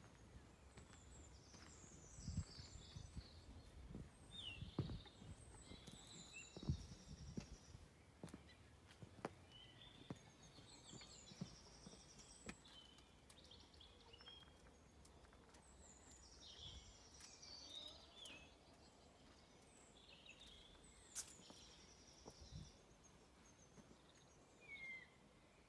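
Faint outdoor birdsong: small birds giving quick trills and chirps. A few soft low thumps come in the first seven seconds.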